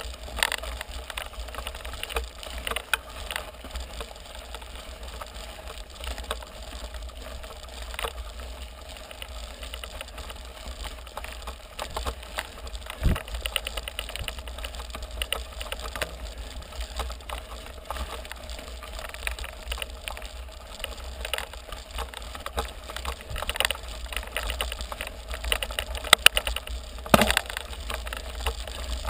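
Mountain bike ridden uphill on a loose gravel road: tyres crunching over the stones and the bike rattling, with scattered clicks and a few sharper knocks, the strongest about thirteen seconds in and near the end, over a steady low rumble.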